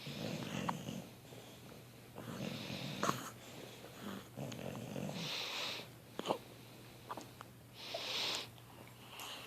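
Hiccups: several short, sharp hics a few seconds apart, with heavy breathing in between.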